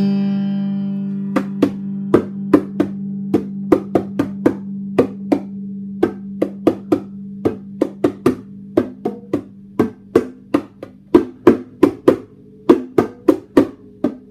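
Stratocaster-style electric guitar: a strummed chord fades, then from about a second and a half in comes a run of short, sharp percussive hits on the strings with little pitch, irregular at about three a second. A steady low hum runs underneath.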